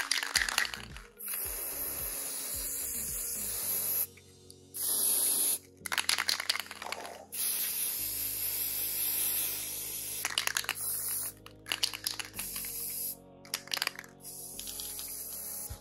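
Aerosol spray can hissing in several separate bursts, each a second or more long, with short scratchy clicks between them.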